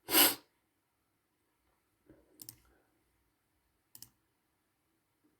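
Computer mouse clicks close to the microphone: a loud one at the start, then a few fainter ones about two and a half and four seconds in.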